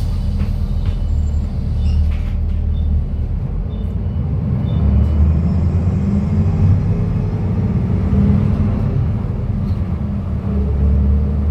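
Cummins diesel engine of a King Long KL6112U1 city bus pulling at high revs while driving. Its drone grows louder about four to five seconds in and dips briefly about ten seconds in.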